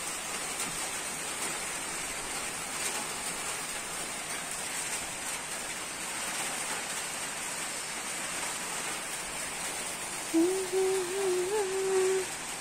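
Strong wind rushing steadily through the trees. From about ten seconds in, a louder wavering hum is heard over it.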